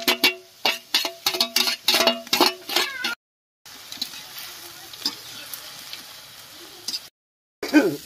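A steel plate and metal spatula clanking against a kadai, ringing clinks in quick succession as chopped ginger, garlic and green chillies are scraped in. After a brief break, onions sizzle steadily in the hot oil with occasional scrapes of the spatula, and the stirring gets louder near the end.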